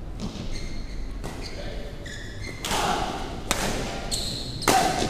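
Badminton rackets striking a shuttlecock in a rally, sharp hits about once a second that echo in the hall, with sneakers squeaking on the court floor.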